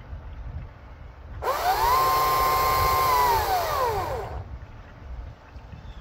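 A chainsaw revved up to full throttle, held for about two seconds, then let back down to idle; the rev lasts about three seconds in all.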